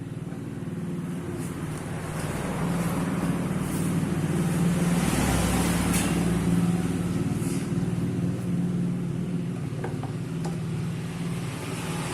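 A motor vehicle's engine running, with a steady low hum that grows louder to a peak about halfway through and then slowly eases off.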